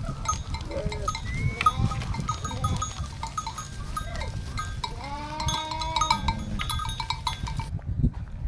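Sheep bleating, with one long, drawn-out bleat about five seconds in and shorter calls around it, over the clinking of small bells and a steady low rumble.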